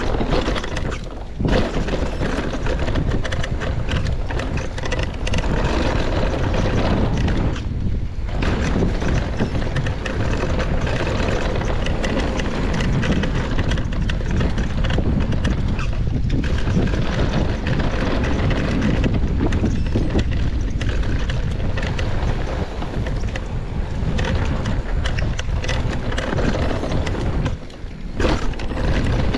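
Wind rushing over the camera microphone and a mountain bike's tyres rolling over a rough dirt trail at speed, with constant small clicks and rattles from the bike over bumps. The noise dips briefly a few times.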